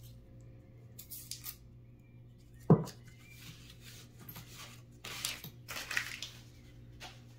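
Hands handling pennies on a tabletop: soft scraping and rustling, with one sharp knock about two and a half seconds in.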